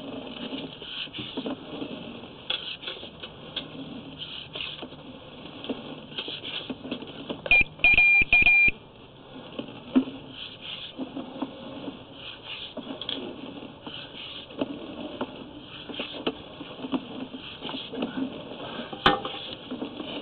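A short burst of loud electronic beeps about eight seconds in, over a faint, irregular rustling clatter. A single sharp click comes near the end.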